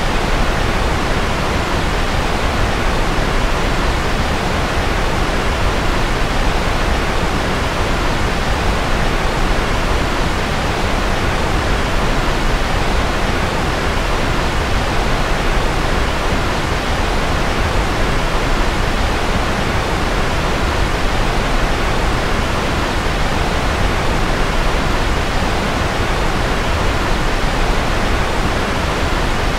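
Steady white noise played as a sleep aid: an even, unchanging hiss, softer in the highest pitches.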